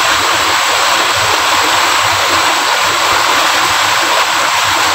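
Steady rush of a fast-flowing stream, an even noise with no breaks.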